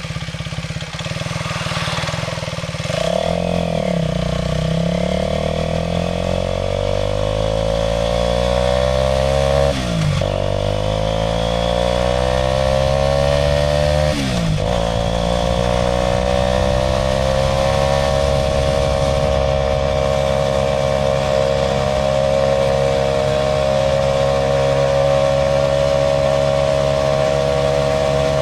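Aprilia RS4 125's single-cylinder four-stroke engine pulling away: the revs climb from about three seconds in, fall sharply with upshifts at about ten and fourteen seconds, rise again, then hold steady at a cruise for the last ten seconds.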